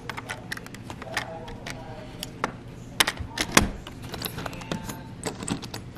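Deadbolt and doorknob being worked by hand: a run of small metallic clicks and clacks as the lock is turned, with two louder clacks about three seconds in.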